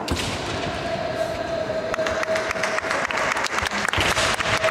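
Spectators applauding, the clapping growing denser about two seconds in, over a steady faint tone.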